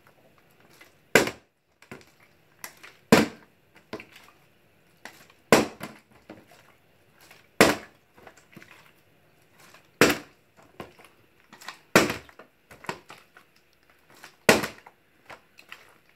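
A partly filled plastic water bottle being flipped and landing hard on a vinyl floor: about seven sharp knocks, one every two seconds or so. Several are followed by smaller knocks as the bottle bounces or tips onto its side instead of landing upright.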